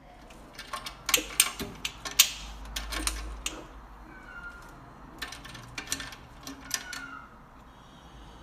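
A cat giving two short, high meows amid a run of sharp clicks and taps, which come thickest in the first few seconds.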